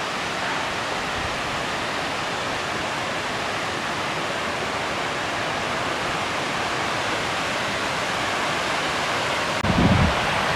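Crabtree Falls' cascade: a steady, even rush of water tumbling over rock. Near the end a low buffeting on the microphone breaks in.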